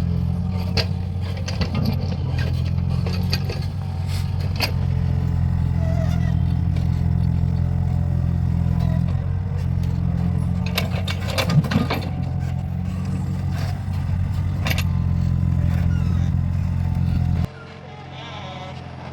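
Mini excavator's diesel engine running steadily while digging, with scattered knocks and scrapes. The engine sound drops abruptly to a much quieter level near the end.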